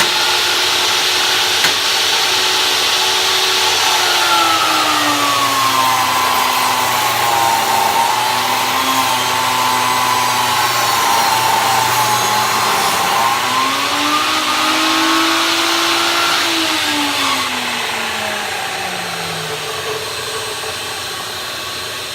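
Skilsaw worm drive table saw ripping a board fed hard: the motor's pitch sags slightly as the blade takes the cut without bogging down, comes back up as the cut ends, then falls away as the saw is switched off and winds down. A vacuum hooked to the saw's dust collection runs along with it.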